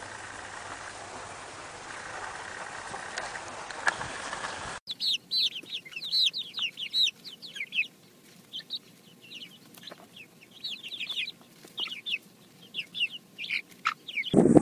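Young chickens peeping and chirping in many short, high calls that fall in pitch, while pecking at watermelon. Before them, for the first five seconds, there is only a steady hiss that stops abruptly.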